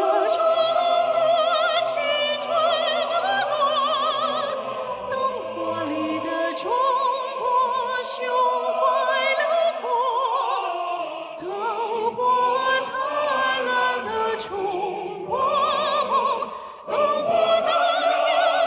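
A male singer singing a slow ballad in a high, operatic voice with a wide vibrato, accompanied by a symphony orchestra with violins.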